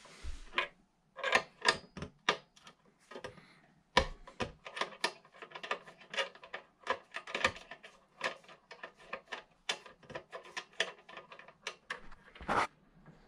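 5/32 Allen wrench turning the set screws in a power converter's terminal lugs: an irregular run of small metal clicks and taps as the key is worked and reset, with a longer, louder scrape near the end.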